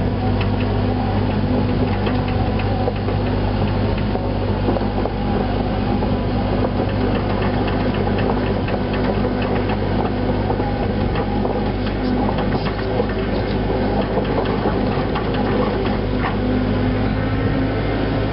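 Cat 307C mini excavator's diesel engine running steadily at working revs, with scattered light clanks and rattles from the machine as it moves and works the dirt, more of them in the second half.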